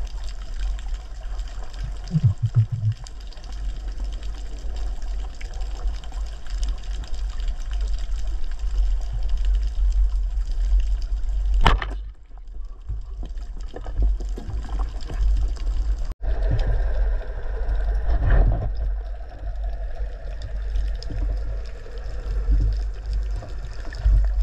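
Muffled underwater rumble and rush of water on the camera, broken once, about twelve seconds in, by a sharp crack as a Salvimar Hero 105 band speargun fires.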